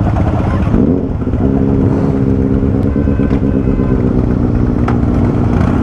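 Benelli TNT 600i inline-four motorcycle engine catching about a second in with a brief rise in pitch, then settling into a steady idle over the low rumble of other motorcycles idling nearby.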